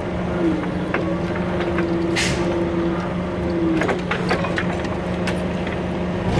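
Hyster H60XM forklift engine running steadily with a whine from the hydraulics as the forks and mast carriage are worked. There is a short hiss about two seconds in and several light metal clicks. The whine stops about four seconds in, and the engine gets louder and changes pitch right at the end.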